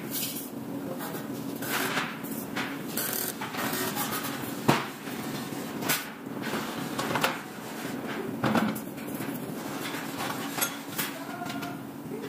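Scattered sharp knocks and clicks of metal being worked on an aluminium frame, over a steady low hum of factory machinery.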